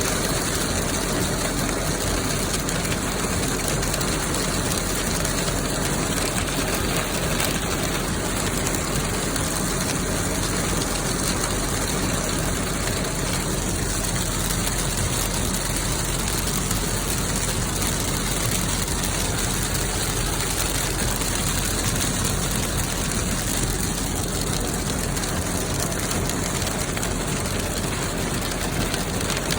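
Hailstones pelting down in a heavy hailstorm, a dense, steady din of countless small impacts.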